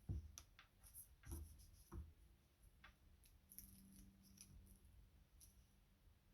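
Faint, scattered clicks and small scraping ticks of fingers handling and pressing a nail polish strip onto a fingernail, with a faint steady hum underneath.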